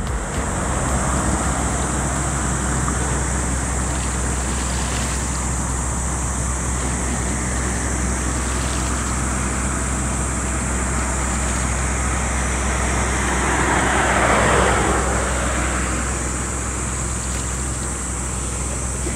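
Harbour ambience: a steady low rumble of boat engines across the water, with wind on the microphone and a steady high hiss. A louder whooshing swell rises and fades about fourteen seconds in.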